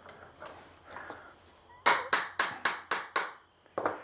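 A run of six quick knocks, about four a second, then one more: a broom-stick handle being bashed into the hole in a wooden veneer-hammer head until it pokes through the other side.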